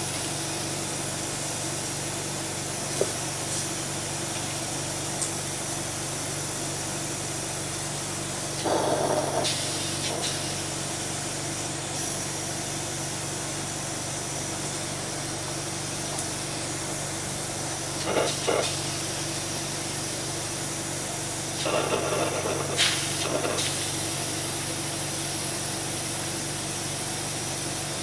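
Steady electrical equipment hum with a constant hiss, interrupted by three short louder bursts of handling noise about a third, two-thirds and four-fifths of the way through.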